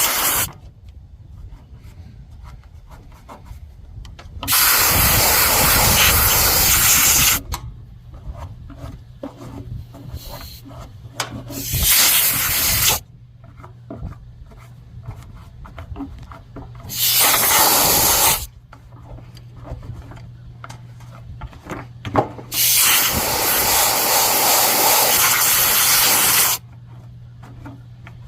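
Compressed-air blow gun in repeated bursts of a few seconds each, blowing dust out of a forced-air kerosene/diesel heater, with small handling clicks and rubbing between the bursts. A steady low hum runs under the second half.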